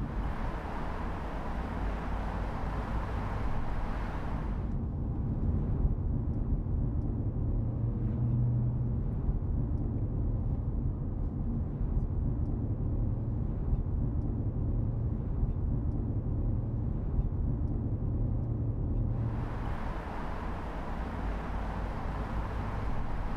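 Low, steady engine and road drone inside the cabin of a 2017 Audi S4 cruising in town at about 50 km/h in Drive, its 3.0-litre turbocharged V6 humming. For the first five seconds or so and again for the last four, this gives way to open outdoor traffic and street noise heard from outside the car.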